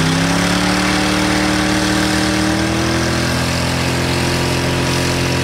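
SUV engine held at high revs, its pitch climbing slowly for about three seconds and then holding steady, with the hiss of wheels spinning as the SUV is driven up onto a sedan.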